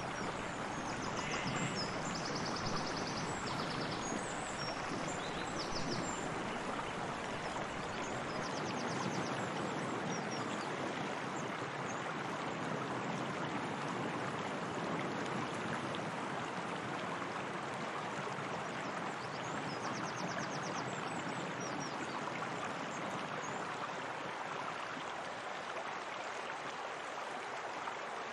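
Steady flowing water, an even rushing wash with no pauses. A few short high trills sound over it in the first few seconds and again about twenty seconds in.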